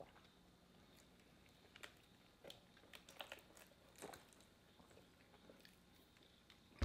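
Near silence, with a few faint, short mouth sounds: swallows and sips as drinks are taken through a straw and from a cup.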